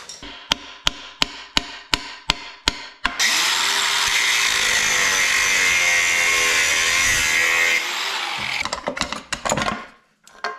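About ten sharp taps, roughly three a second. Then an angle grinder spins up and cuts metal on the minibike engine for about four and a half seconds, showering sparks, before it winds down. A few clinks follow near the end.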